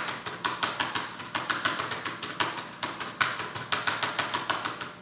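Fast, continuous typing on an Apple laptop keyboard: a rapid, uneven patter of key clicks, several a second.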